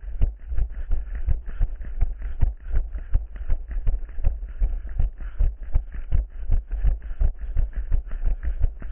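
A runner's footsteps, an even rhythm of dull thuds at about three strides a second, over a steady low rumble.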